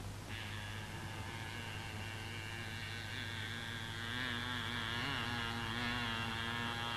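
Buzzing of a fly, played as the sound effect for the fly act: a steady drone that starts just after the beginning, wavers in pitch as if the fly were circling, and grows louder in the second half, over a low electrical hum.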